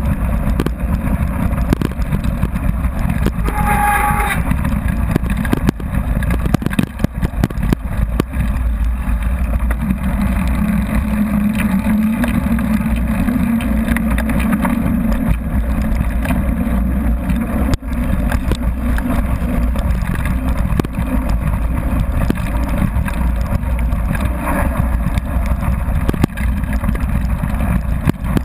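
Mountain bike rolling fast down a gravel road, heard from a handlebar-mounted camera: constant wind buffeting and tyre rumble with small rattles and knocks from the bike and mount over loose stones. A short high-pitched tone about four seconds in.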